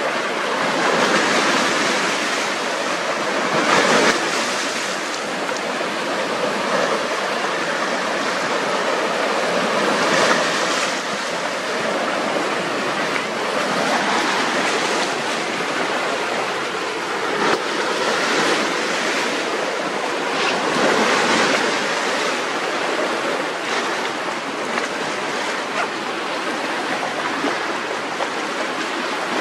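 Lake Ontario waves washing in and splashing against shoreline rocks: a continuous rush that swells every few seconds as each wave breaks.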